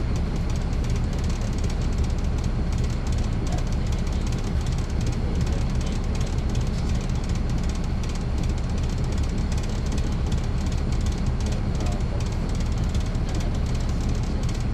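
Inside a 2009 NABI 40-SFW transit bus, heard from the back seat: its Caterpillar C13 ACERT diesel engine running steadily, with a deep, even drone and a hiss of cabin and road noise.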